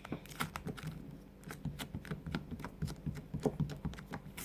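Hands working a stiff, clay-like slime, giving irregular small sticky clicks and crackles.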